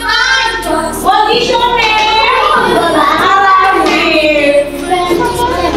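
A group of young children singing together with a woman's voice.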